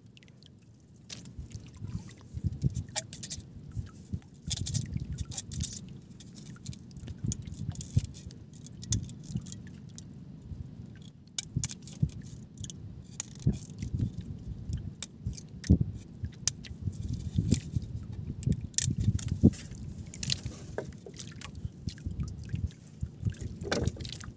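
Low, uneven rumble with frequent sharp clicks and scrapes throughout: handling noise from a hand-held camera aboard a small outrigger boat while handlines and bait tins are worked.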